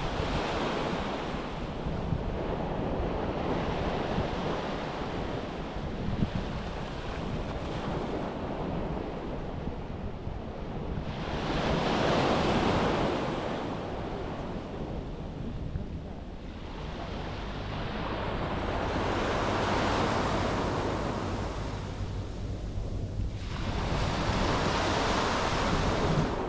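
Sea waves breaking and washing up a beach, swelling and fading in slow surges, with wind rumbling on the microphone.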